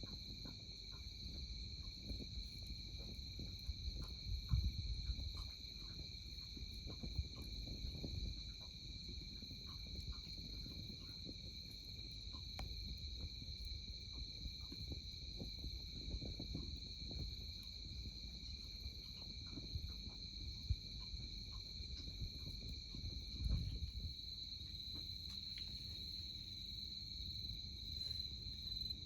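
Steady high chirring of autumn insects such as crickets, with scattered small crackles and pops from a wood campfire. Soft low rumbles rise now and then, most clearly about five seconds in and near twenty-four seconds.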